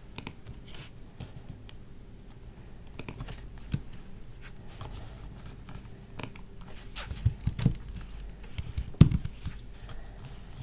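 Typing and clicking on a Microsoft Wedge Bluetooth keyboard and mouse: scattered light key clicks, with a few louder taps between about seven and nine seconds in.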